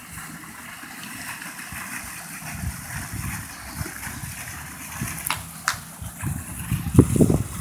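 Steady splash and hiss of a park fountain's water jet, under an uneven low rumble and a few clicks; louder low thuds come in near the end.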